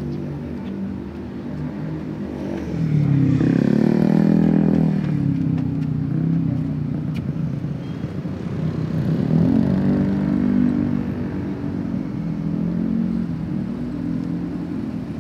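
Street traffic, mostly motorcycles, passing continuously. Engine pitch rises and falls as two louder vehicles go by, about three seconds in and again about ten seconds in.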